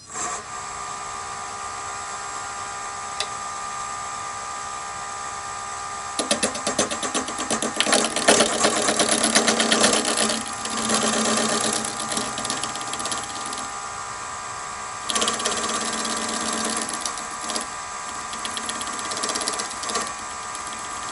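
Nova DVR-XP wood lathe starting up at about 500 RPM and running with a steady hum of several tones. From about six seconds in, a turning gouge cuts the spinning plastic cutting-board disc, adding a rough, uneven cutting noise that comes and goes, loudest around eight to ten seconds and again from about fifteen seconds.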